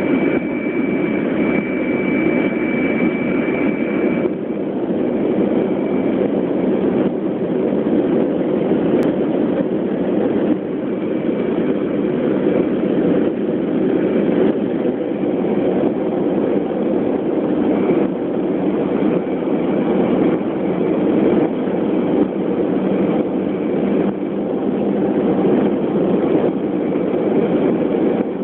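Jet airliner cabin noise during taxi: a steady engine rumble with a faint high whine, stronger in the first few seconds.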